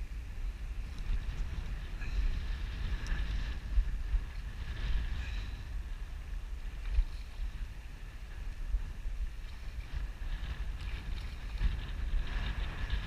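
Wind buffeting the microphone in a steady, gusting rumble, with splashing water near the end as a small hooked striped bass thrashes at the surface.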